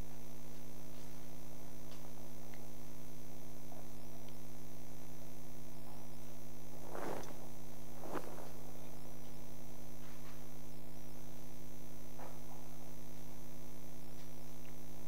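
Steady electrical mains hum from the sound system, with a couple of faint, brief sounds a little past the middle.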